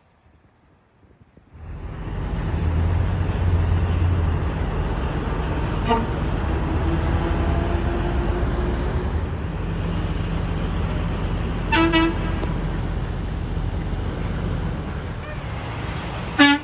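Heavy diesel truck engine running loud and close, cutting in abruptly after a quiet second and a half. Three short horn toots sound over it, about six, twelve and sixteen seconds in.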